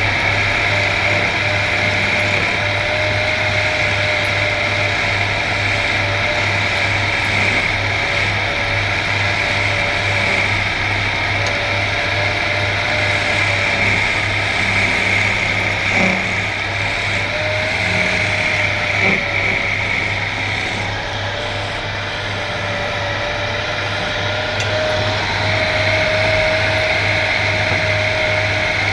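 Electric woodworking machine running steadily, its motor tone dipping slightly now and then, with a few faint knocks around the middle.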